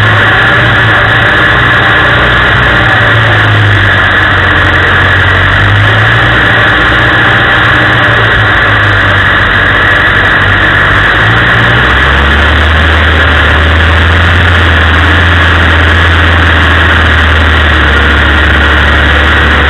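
Land Rover engine running as the vehicle drives a rough, rutted off-road track, heard from inside the cab. The engine note drops lower about twelve seconds in.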